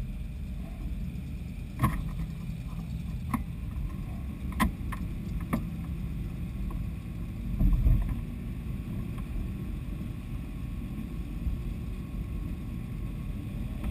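Off-road mud rig's engine running steadily at idle, heard from inside the cab, with a few sharp knocks and one louder low thump about eight seconds in.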